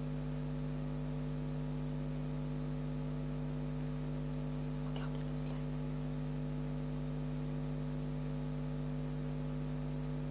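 Steady electrical hum made of several constant tones, with a couple of faint short sounds about five seconds in.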